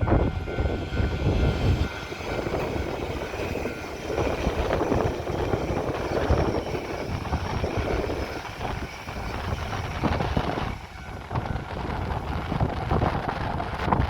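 Train passing over the level crossing: a loud, surging rumble and rush with gusts of wind blast buffeting the microphone.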